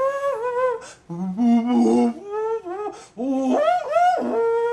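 A man's voice imitating a euphonium, humming and buzzing a tune of held and sliding notes in about three phrases, the last one a long held note.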